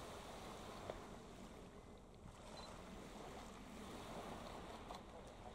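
Faint, steady wash of wind and water at the shoreline, with one short click about a second in.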